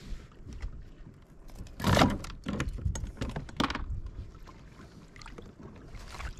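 Handling noise on a fishing kayak: a scatter of small clicks and rattles with a few short, rushing bursts of noise, the loudest about two seconds in.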